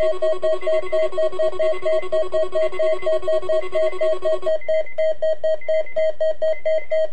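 Weather alert radio sounding its alarm for the weekly test: rapid electronic beeping at about five beeps a second. Under it runs a steady warning tone that stops about four and a half seconds in, while the beeping carries on.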